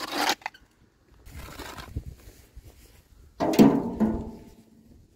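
Steel spade digging into turf and soil, with scraping, crunching strokes: a short sharp scrape at the start, a softer stretch of digging, and a louder scrape about three and a half seconds in.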